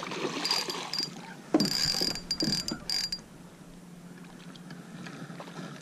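Spinning reel and line under load from a large speckled trout on the hook: a high thin whine in several short spurts over the first three seconds, with a few knocks, then quieter.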